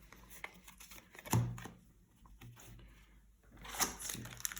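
Trading cards being handled: faint light clicks and slides of card stock, with a short hum of voice about a second and a half in. Near the end a crinkling of plastic starts and grows, the sound of the next booster pack's wrapper being opened.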